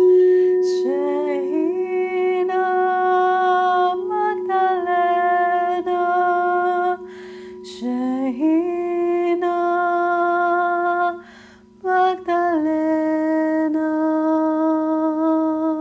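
A crystal singing bowl rings with a steady held tone while a woman sings long notes over it, close to the bowl's pitch. Her singing comes in three long phrases, each sliding up into the note, with short breaths between them.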